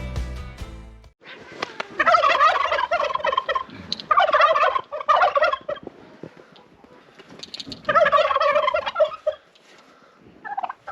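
Domestic turkeys gobbling: four bursts of rapid, warbling gobbles a second or two apart.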